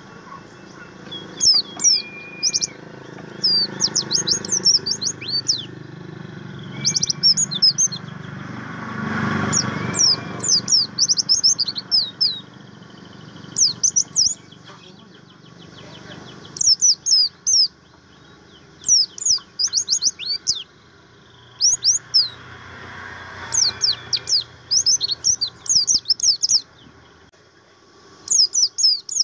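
Pleci buxtomi white-eye singing: repeated bursts of quick, high, downward-sweeping chirps, each burst a second or less, with short pauses between, over a steady low background hum.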